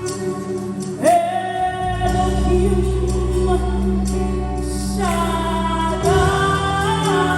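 Live gospel worship music: sung vocals holding long notes and sliding between them, over a steady, sustained bass.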